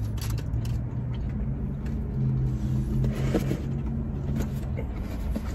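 A car engine running, a low steady hum that rises a little in pitch about two seconds in and stops shortly before the end.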